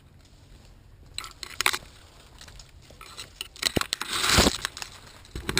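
Dry leaves, twigs and brush crunching in irregular bursts as someone pushes through undergrowth on foot. It starts about a second in, with the loudest burst just past the middle.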